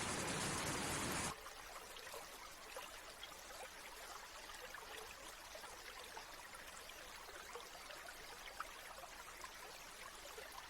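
A loud steady hiss cuts off abruptly about a second in, leaving a quiet stream trickling, with many small fine splashes.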